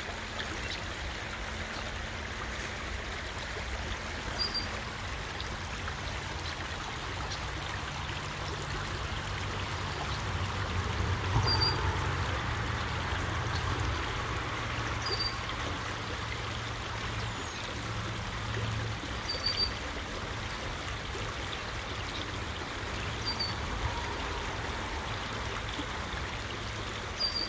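Creek water running steadily, an even rushing flow.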